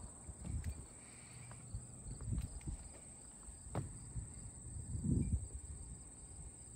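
Steady high-pitched chorus of insects, with a few soft low thumps and a single sharp click just under four seconds in.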